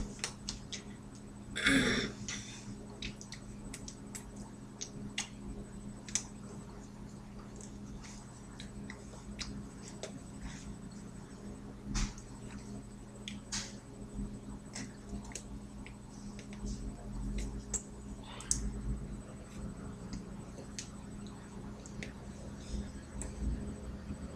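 Scattered soft clicks, taps and fabric rustles from hands and a sweatshirt as a person signs, with one louder rustle about two seconds in, over a steady low hum.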